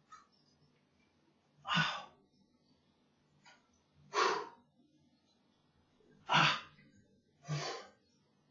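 A man's hard breathing from exertion during bodyweight reps: four short, sharp breaths, roughly two seconds apart, the last two closer together.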